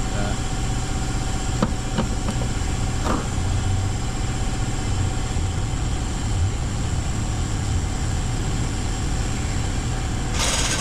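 Steady low mechanical hum, like an engine or machine running, with a few light clicks in the first few seconds as the brake pads and hardware are handled, and a brief louder scrape or rustle near the end.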